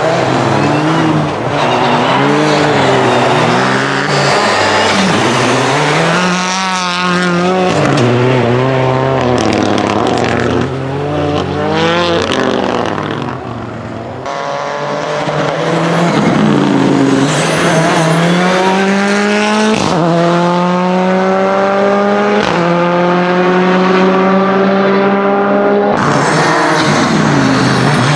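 Renault Clio N5 rally car's engine revving hard, its pitch swinging up and down, then climbing steadily and dropping sharply twice as it accelerates through upshifts in the second half.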